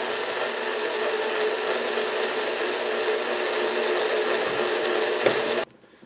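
Cordless drill-driver running steadily, driving a screw into the brass plug of a padlock body held in a vise, then stopping suddenly about five and a half seconds in.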